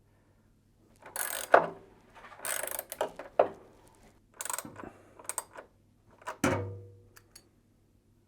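A 7mm socket wrench ratcheting in several short bursts as the screws holding a washing machine's rear temperature sensor are driven back in. There is a louder thump about six and a half seconds in.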